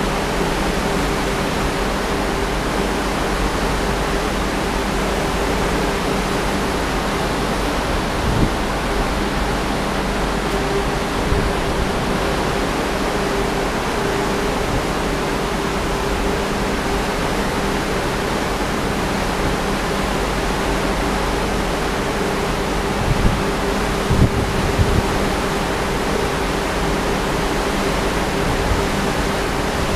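High wind rushing across a ship's balcony and buffeting the microphone, over the steady rush of the sea, with a faint steady hum underneath. A few louder gusts bump the microphone, once about 8 seconds in and several times near the end.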